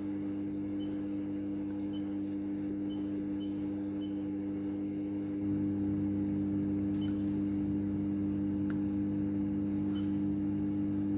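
Microwave oven running on high power: a steady hum that gets a little louder about halfway through. A few faint clicks of oscilloscope buttons being pressed.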